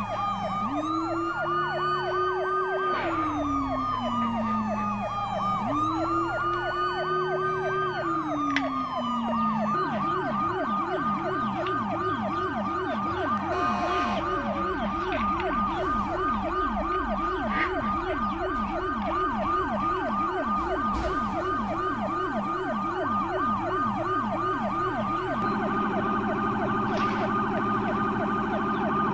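Electronic toy sirens sounding together: a fast, repeating yelp throughout, with a slow rising-and-falling wail over it that stops about ten seconds in, after which a second fast yelp takes its place.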